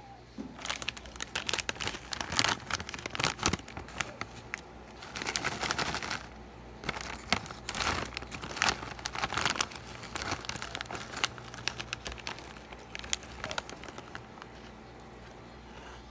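Plastic snack packet crinkling and rustling in the hands as it is opened, in quick irregular crackles, with a denser stretch about five seconds in; the crinkling dies away near the end.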